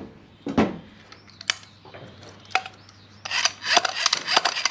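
Toyota 1UZ VVTi drive-by-wire throttle body handled on a bench: a few knocks and clicks, then from about three seconds in a quick run of metallic clicking as the butterfly is turned by hand, driving the gears of the throttle motor inside.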